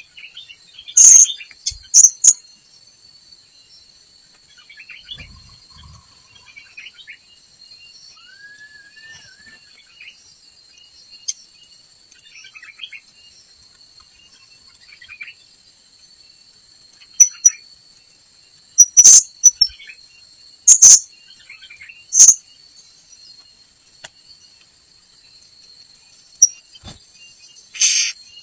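Short, sharp, high-pitched calls of blue-crowned hanging parrots (srindit), given singly and in quick pairs every few seconds, over a steady drone of insects.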